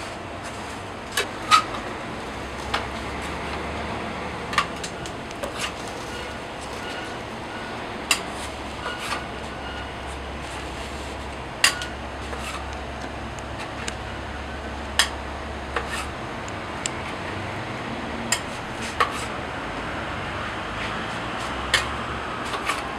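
Metal spatula clinking against a stainless tray of red bean paste and cast-iron taiyaki molds as paste is scooped and laid on the batter: irregular sharp clinks about every second or two, over a steady low hum.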